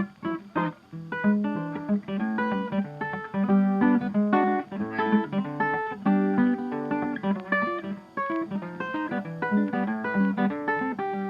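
Background music: plucked acoustic guitar playing a quick run of notes.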